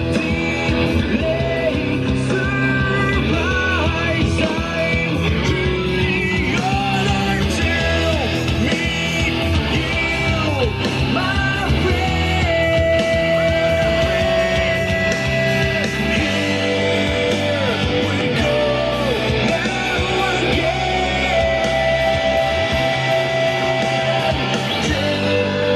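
Rock song with sung vocals, electric guitar and bass, played at volume through a JBL PartyBox 300 Bluetooth party speaker.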